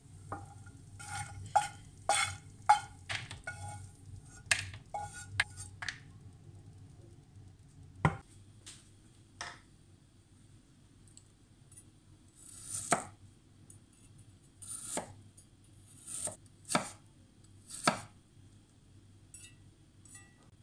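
Chef's knife cutting garlic cloves on a bamboo cutting board: single sharp knocks of the blade on the wood, a second or two apart, through the second half. Before that, a quick run of light clicks and knocks lasts a few seconds.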